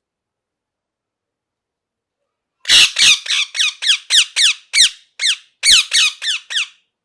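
Ringneck parakeet giving a rapid run of about a dozen shrill calls, each a quick downward-sweeping screech, starting nearly three seconds in and lasting about four seconds.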